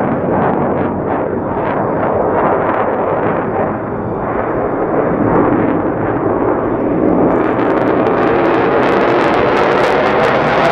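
F-35A Lightning II's single Pratt & Whitney F135 turbofan in afterburner on a pass: a loud, rough jet rumble that turns sharper and crackles from about seven seconds in as the jet closes in.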